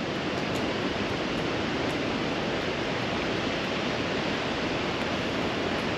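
Steady rushing of a river flowing past, an even unbroken wash of water noise.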